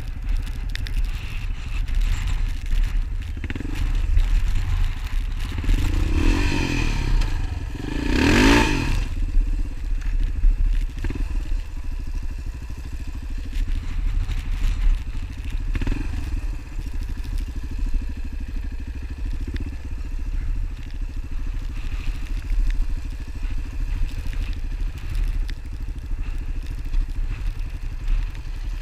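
A motor vehicle engine running with a steady low rumble. Between about six and nine seconds in, a louder engine sound swells, its pitch rising and falling, then fades.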